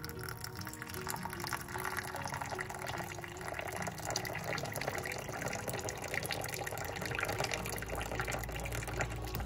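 Water poured in a steady stream into a ceramic mug over a tea bag, splashing as the mug fills, with background music.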